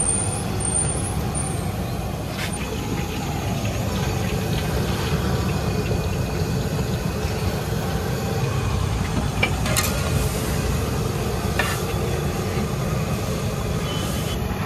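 Steady low rumble and hiss of road traffic, with a few short clinks about two, ten and twelve seconds in.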